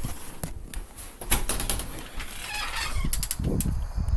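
Rubbing and clicking of a handheld camera being carried, with a few soft thumps of footsteps in the second half.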